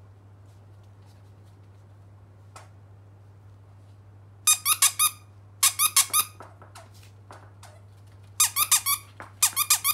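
Squeaker inside a plush mesh banana dog toy squeezed by hand: four quick bursts of about four sharp squeaks each, two around the middle and two near the end.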